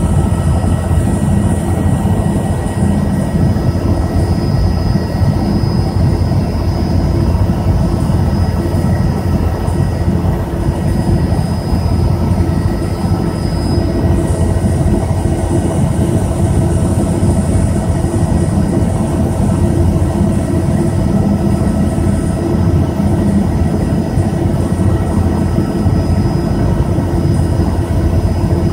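Helicopter in steady cruising flight, heard from inside the cabin: a constant drone of rotor and engine with a thin high whine over it.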